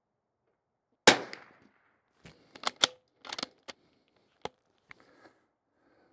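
A single shot from a Bergara B14R .22 rimfire bolt-action rifle about a second in, then a run of short metallic clicks as the bolt is worked to eject the case and chamber the next round.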